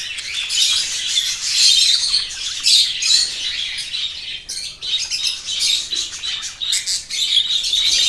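Budgerigars chirping in a continuous, high-pitched chatter of quick cheeps, while the parents feed their newly hatched chicks in the nest box.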